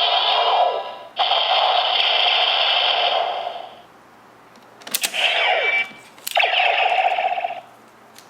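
DX Neo Decadedriver toy belt playing electronic Final Attack Ride sound effects through its small speaker, in several bursts of layered tones and falling sweeps. A sharp plastic click of the belt's mechanism comes about five seconds in and again near the end.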